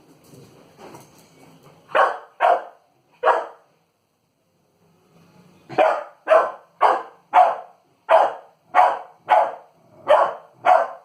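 Three-month-old pit bull puppy barking at an inflated balloon in play: three barks about two seconds in, a short silence, then a steady run of about ten barks, roughly two a second.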